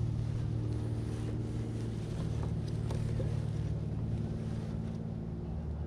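Steady low engine hum, running evenly without revving.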